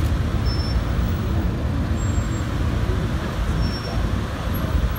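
Steady low rumble of slow-moving street traffic, engines idling and crawling along.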